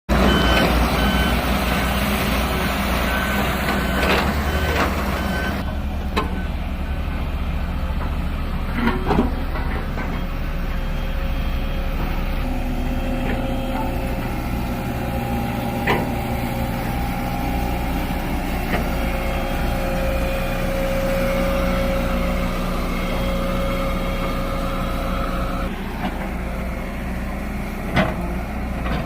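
Heavy construction vehicle running, its reversing alarm beeping steadily for the first six seconds or so. After that the engine runs on with a steady whine and a few sharp metallic clanks.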